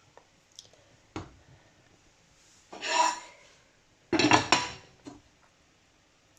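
Utensil and dishes clattering: a click about a second in, a scrape near the middle, and a louder clatter with clinks about four seconds in, as jollof rice is dished up or eaten.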